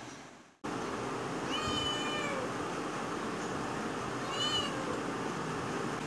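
A young cat meowing twice over a steady background hiss: a level call lasting about a second, then a shorter rising-and-falling one about two seconds later. The sound drops out briefly just before the first call.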